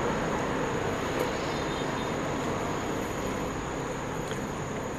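Steady background noise, a low rumble and hiss, with a faint steady high whine.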